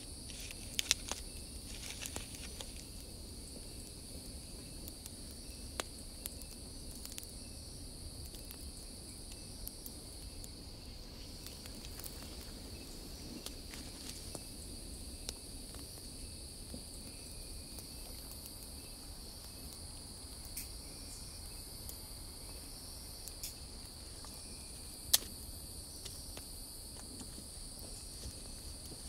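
Crickets chirping in a steady high-pitched trill, with scattered sharp clicks, the loudest about 25 seconds in.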